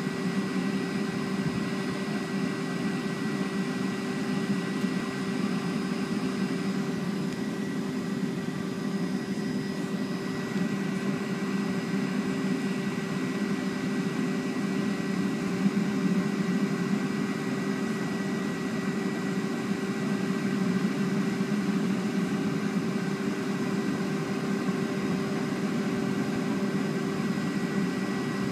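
Cabin noise of a Boeing 757-200 taxiing, heard from a seat just ahead of the wing: the turbofan engines run at low taxi power as a steady hum with a few high, steady whining tones.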